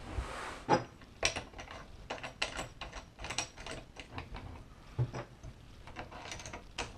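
Irregular clicks and clinks of small metal parts being handled: aluminium extrusions and hardware being set onto a metal plate, with a few sharper knocks near the start and about five seconds in.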